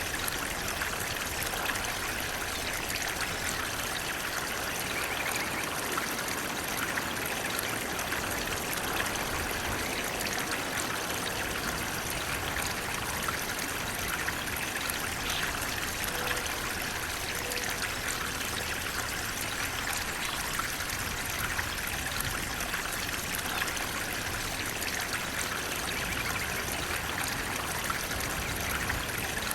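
Water flowing steadily over rocks in a stream or small waterfall, an even rushing with a light trickle.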